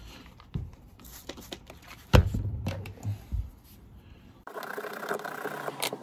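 Metal car door handle being handled and rubbed in a cloth towel: small clicks and a sharp knock about two seconds in, then a second and a half of steady rubbing that stops suddenly near the end.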